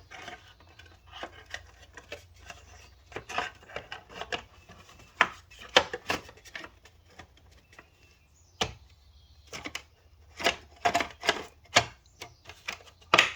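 Plastic engine-bay covers on a BMW M340i being handled and fitted back into place: irregular sharp clicks and knocks, coming closer together near the end.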